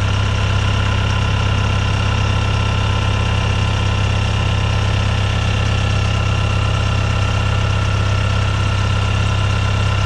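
Horizontal directional drill's engine running at a steady speed, with a steady high whine over it, while its hand controls raise part of the machine.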